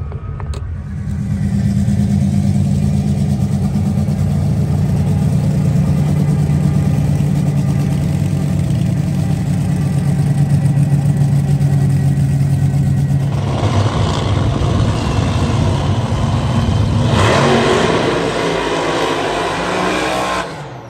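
Vehicle engines running at a drag strip: a steady low engine drone for about twelve seconds, then louder, rougher engine noise that swells and drops off sharply near the end.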